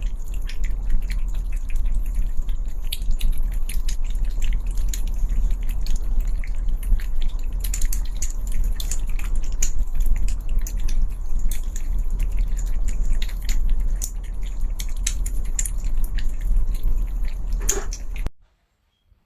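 Cats eating wet canned food: rapid wet clicking and smacking of lapping and chewing. It cuts off suddenly near the end.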